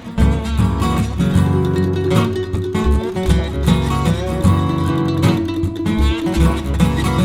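Background music led by strummed and plucked guitar over a steady beat.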